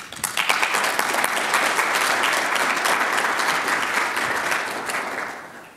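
Audience applauding, dying away in the last second.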